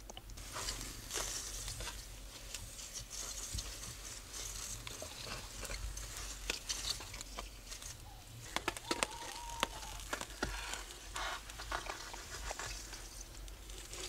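Scraping and crunching of someone moving over clear black lake ice, with many short sharp clicks, the loudest bunched about nine seconds in.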